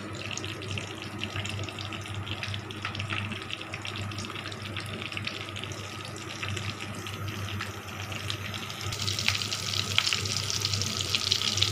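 Breadcrumb-coated potato kebabs deep-frying in hot oil in a wok: a steady crackling sizzle that grows louder and brighter about nine seconds in as the oil bubbles hard.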